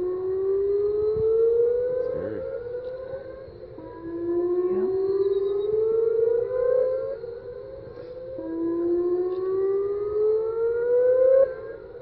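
Outdoor civil-defense warning sirens sounding for a tornado warning: a tone that rises slowly for about three seconds, drops back and starts rising again, three times, swelling and fading in loudness with each rise.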